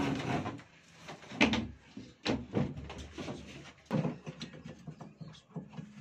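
Clicks and knocks of plastic and metal parts being handled inside the base of a Sharp washing machine as a replacement gear case is fitted, with sharper knocks about one and a half, two and a half and four seconds in.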